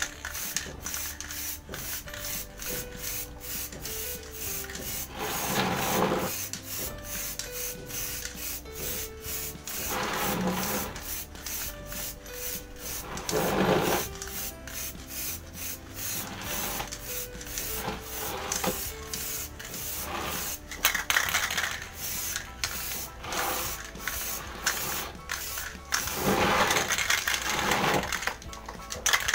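Aerosol spray can of clear lacquer hissing in several short bursts of about a second each as it is sprayed onto a helmet, over background music with a steady beat.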